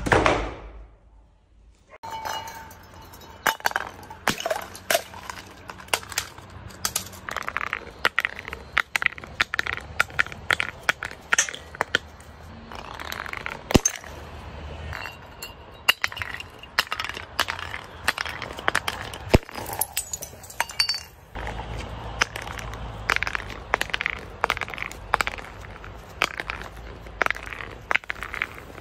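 Glass bottles tumbling down concrete steps: many sharp, irregular clinks and knocks, with glass breaking as they smash.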